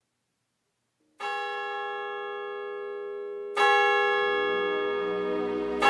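Instrumental intro of a song's accompaniment: bell-like chords struck three times, about two seconds apart, starting about a second in, each ringing on and slowly fading, the later two louder; a low bass note enters near the middle.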